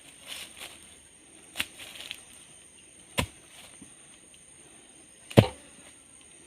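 Three sharp knocks, about a second and a half to two seconds apart, the last the loudest, with a few fainter ticks between them, over a steady thin high-pitched tone.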